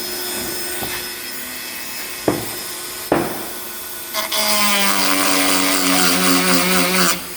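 Two knocks, then a Dremel rotary tool with a small cone grinding stone starts a high whine about four seconds in as it grinds a chainsaw chain cutter. It runs for about three seconds and stops abruptly near the end.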